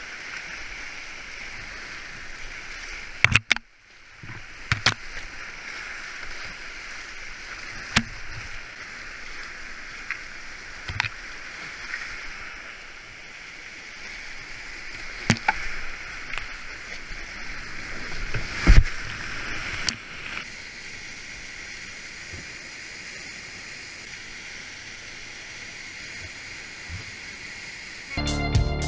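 Steady rush of fast creek water around a kayak, with occasional sharp knocks from the paddle or hull. Music comes in near the end.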